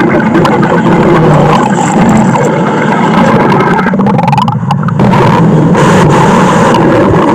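Stomach growling, loud and continuous, with a brief dip about four and a half seconds in.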